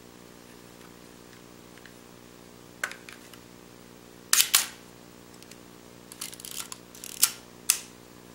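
Pentax Super-A 35mm SLR's mechanism being worked by hand: a single click, then a loud sharp double click about halfway through, a quick run of smaller clicks, and two more sharp clicks near the end, the sounds of the shutter firing and the wind and control mechanism.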